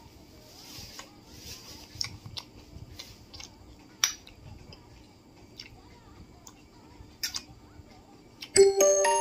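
A steel spoon clinking and scraping against stainless-steel bowls and a steel plate, a few sharp clinks spread out, the loudest about four seconds in. Near the end a much louder chiming, bell-like music cuts in.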